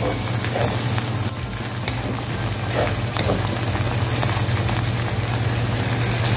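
Chicken gizzards and liver sizzling and simmering in a thin liquid in a nonstick wok while a wooden spatula stirs and scrapes the pan a few times. A steady low hum runs underneath.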